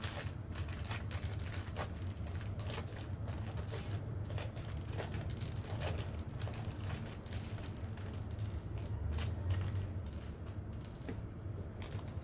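Irregular light clicks and taps, like small tools being handled on a workbench, over a steady low hum.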